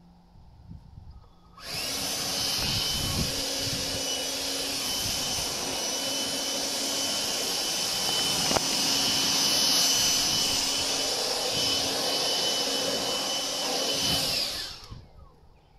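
Chainsaw running at full throttle on a chainsaw mill, ripping lengthwise through a leylandii slab. It cuts in suddenly about two seconds in, runs steadily, and dies away near the end.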